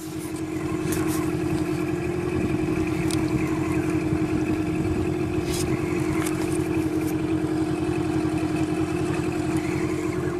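Small boat motor running at a steady, constant-pitched hum. A few faint light clicks sound over it.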